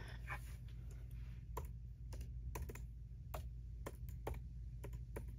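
Typing on a MacBook Pro 14-inch's built-in scissor-switch keyboard: about a dozen light key clicks at an uneven pace.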